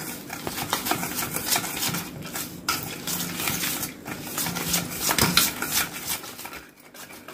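Wire whisk beating mango pulp into a semolina cake batter in a stainless steel bowl, its wires clicking and scraping against the steel in a quick, uneven run. The beating pauses briefly near the end.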